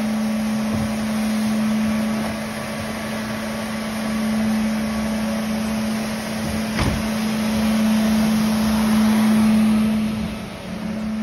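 Tennant T7 ride-on floor scrubber running as it scrubs and vacuums up a spilled oil pool: a steady hum of its brush and vacuum motors over a constant rush of suction. A single sharp knock about seven seconds in.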